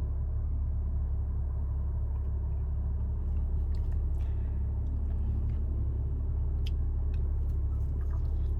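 A steady low rumble or hum, with faint scattered clicks of someone eating.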